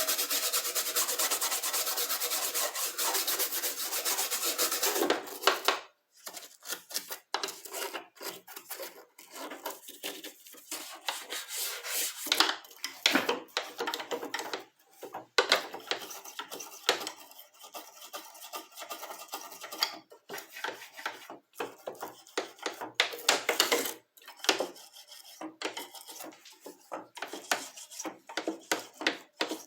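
An old brush scrubbing the dirty speaker grille of an electronic keyboard. It brushes steadily for about five seconds, then goes on in shorter, irregular strokes with brief pauses.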